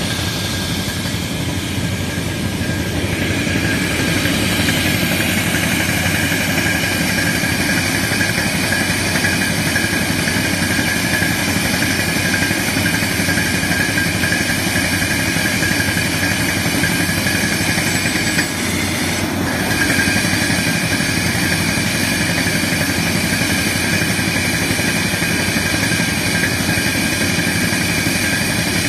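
Truck-mounted guardrail post-hole drilling machine at work: its engine runs and the drill works into the rocky ground, a loud, steady machine din with a brief dip a little past halfway.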